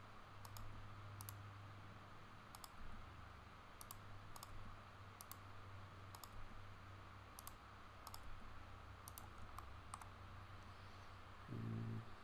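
Faint, irregular clicks of a computer mouse and keyboard being operated, about fifteen over the stretch, over a steady low hum. A brief low pitched hum comes near the end.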